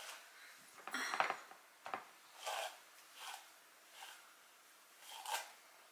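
Hairbrush drawn through curled, hairsprayed hair to brush out the curls: several short brushing strokes, roughly one a second.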